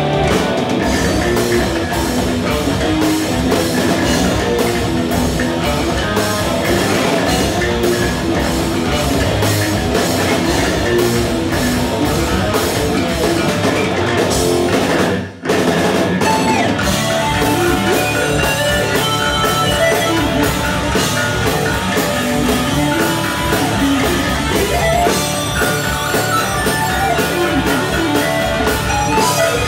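A rock band playing with drum kit and guitar. The whole band stops dead for a split second about halfway through, then comes straight back in.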